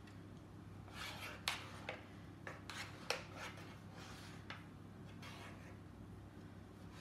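Metal palette knife scraping and smoothing a thick cake mixture in a square metal baking tin, with the tin shifted on the board. A run of short scraping strokes comes mostly in the first half, then the strokes go fainter.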